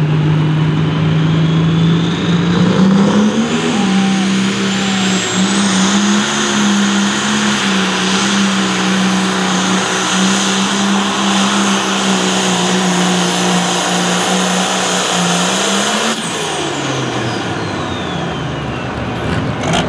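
A John Deere Pro Stock pulling tractor's turbocharged diesel engine at full throttle, dragging the weight sled. Its revs climb a few seconds in and hold steady under load, with a high turbo whine. Near the end the engine and whine wind down as the throttle comes off at the end of the pull.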